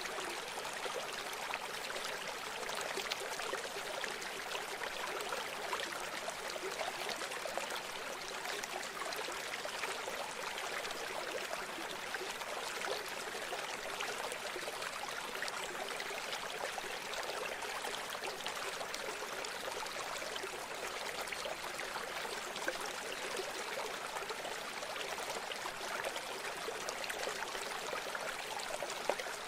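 River water flowing, a steady, even rushing sound that does not change.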